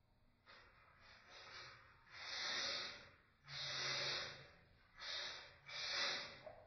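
A person breathing heavily: a run of long, audible breaths in and out, mostly in pairs, loudest in the middle.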